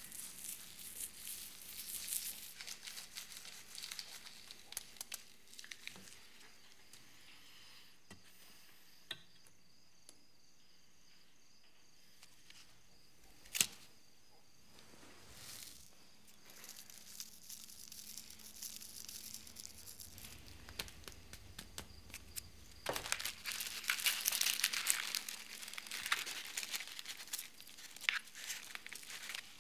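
Close handling of a cigarette and its paper pack: soft rustling and crinkling of cigarette paper and loose tobacco, with a single sharp click about halfway through and louder crinkling of the pack in the last few seconds.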